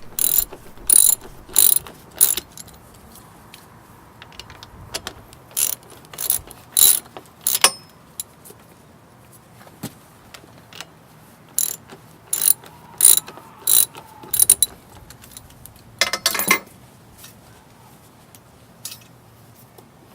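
Socket ratchet wrench clicking in short bursts of quick strokes with pauses between: loosening fasteners to free a motorcycle's front wheel axle.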